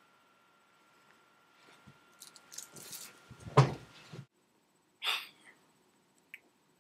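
Rustling and knocking close to the microphone, building to one loud thump about halfway through, then a short breathy puff of noise.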